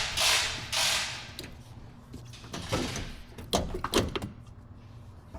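Plastic interior trim around the steering column being pulled and slid free: two scraping sweeps in the first second, then a few sharp clicks and knocks.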